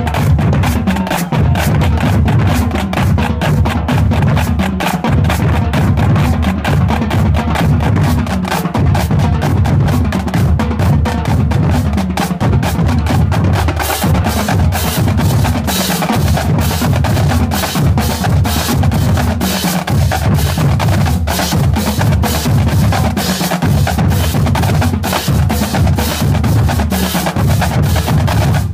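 High school drumline playing continuously: snare drums rattling out dense, fast strokes over pounding bass drums.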